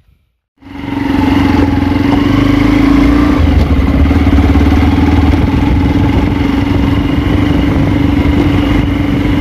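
Hero XPulse 200's single-cylinder 200 cc engine running steadily as the motorcycle is ridden at low speed, heard from the rider's seat. The sound cuts in suddenly about half a second in.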